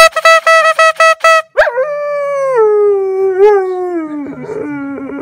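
A quick run of about eight short notes at one steady pitch. Then a Siberian husky gives one long howl that starts high and slides slowly lower, wavering once midway.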